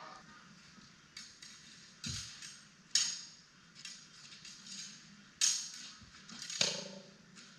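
Steel rapier blades clashing in sparring: a series of sharp metallic clinks, the loudest about three seconds in and again past five seconds, with lighter ticks and a couple of dull thuds between.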